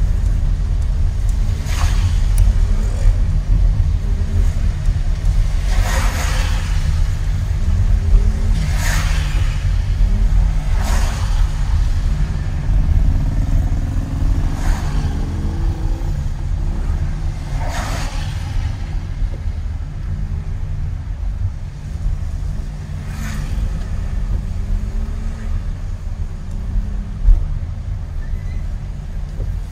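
Steady low rumble of a car driving on the road, with a brief louder pass-by sound every few seconds.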